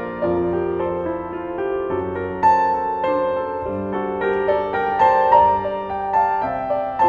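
Gentle background piano music: a slow melody over sustained chords.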